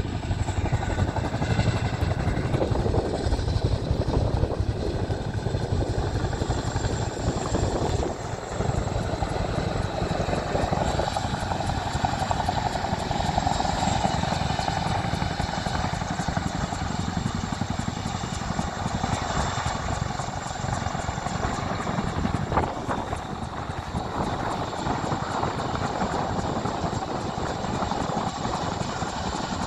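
Boeing CH-47 Chinook tandem-rotor helicopter flying low and hovering, its twin rotors beating in a rapid, steady thud over a deep engine and rotor rumble.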